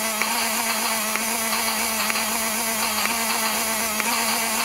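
Small battery-powered electric motor of a knock-off Thomas toy train whirring steadily as it works the smoke unit's bellows, with a light click about twice a second.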